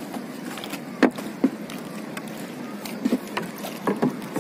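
Water lapping against a small fibreglass-covered wooden sampan, with several sharp knocks on the hull, the loudest about a second in.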